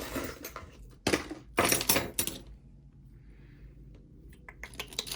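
Pieces of costume jewelry clinking and rattling against each other as they are rummaged through, with two bursts of clatter in the first half and a few small clicks near the end.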